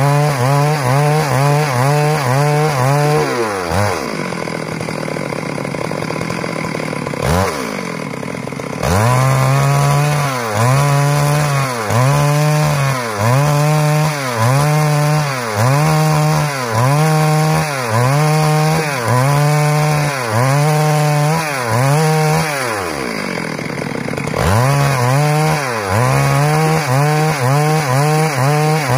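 Stihl MS 382 two-stroke chainsaw cutting into a timber slab, its engine note dipping under load and recovering about once a second. It drops back to idle from about four seconds in, gives a brief rev, returns to full-throttle cutting, and idles once more briefly near the end before cutting again.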